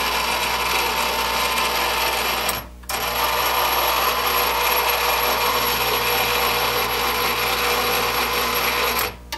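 Ham IV antenna rotor's drive motor and gears turning the housing: quite noisy, and it sounds absolutely dry, as if no lubrication is left in the bearings. It stops briefly about two and a half seconds in, then runs again until just before the end.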